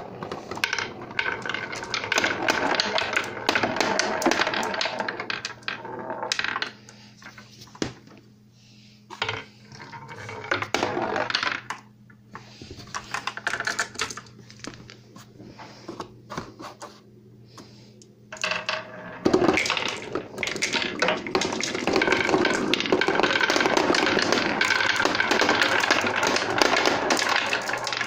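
Marbles rolling and clattering down a homemade marble run of wooden troughs, cardboard and hardboard. The rattle comes in spells: through most of the first six seconds, again briefly around the middle, and steadily through the last third.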